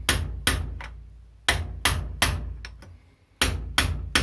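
Light hammer blows driving the lower bearing out of a Lada Niva steering idler arm housing, about nine sharp taps in groups of three, each with a short ringing tail.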